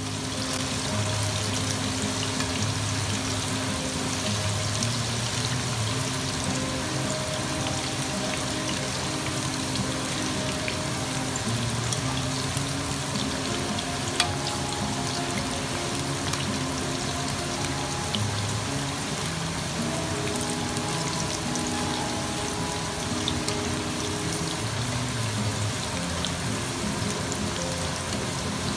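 Green beans frying in hot oil in a wok, a steady crackling sizzle with scattered pops. Background music with held low notes plays over it.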